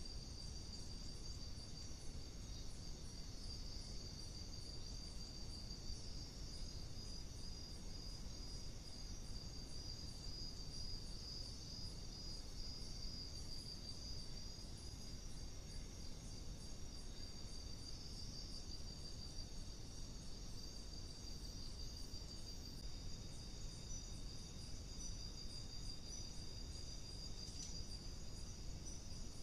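Night insect chorus of crickets calling without pause in a high-pitched trill, over low, steady background noise.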